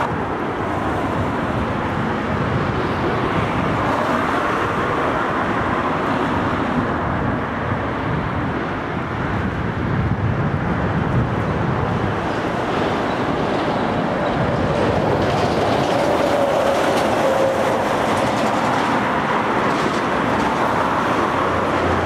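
Steady road traffic noise, cars passing on the road beside the river walkway.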